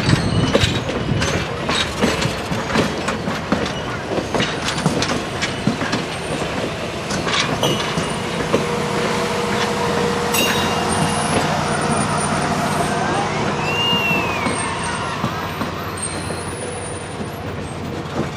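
Cuyahoga Valley Scenic Railroad stainless-steel passenger cars rolling slowly past, their wheels clicking over the rail joints. The clicks thin out after about eight seconds into a steady rolling rumble, with a short rising-and-falling squeal about two-thirds of the way through.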